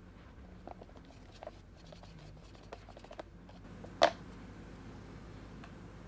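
Small clicks and taps of a cured resin casting being handled and worked out of its mould cup, with one sharp knock about four seconds in.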